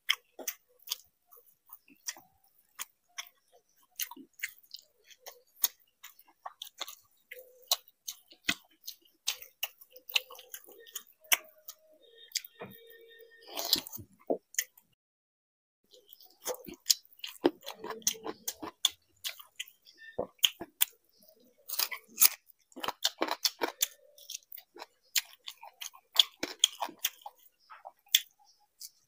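Close-up, wet chewing and lip-smacking as a man eats fried rice and chicken leg curry with his fingers: many short moist clicks and smacks. The sound drops out completely for about a second just before halfway.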